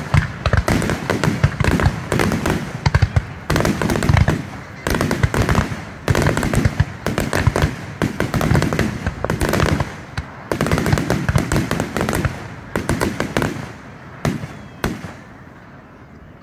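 Fireworks display: a dense barrage of shell launches and bursts, booms with crackling, that thins out and quietens over the last couple of seconds.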